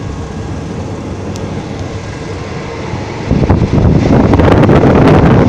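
Moving passenger train, a steady rumble heard from inside the carriage. A little past three seconds in it gets much louder, with wind buffeting the microphone at an open window.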